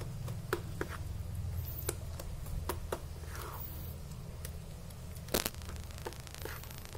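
Plastic rice spoon stirring a wet nugget mixture of rice and minced lobster in a plastic bowl, with scattered light clicks of the spoon against the bowl and one louder click about five seconds in, over a steady low hum.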